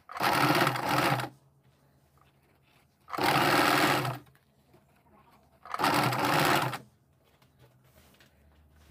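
Domestic electric sewing machine stitching in three short runs of about a second each, stopping between them.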